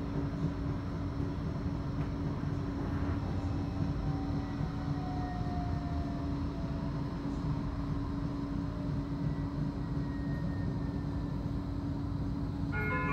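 Cabin running noise of a Bombardier Flexity 2 tram in motion: a steady rumble with a constant hum and a few faint whining glides. Near the end a chime from the onboard announcement system starts.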